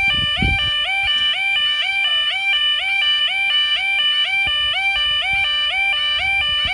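Yodalarm level-crossing warning sounder giving its loud two-tone alarm, stepping rapidly and evenly between a lower and a higher pitch: the warning that the automatic half barriers are down and a train is approaching.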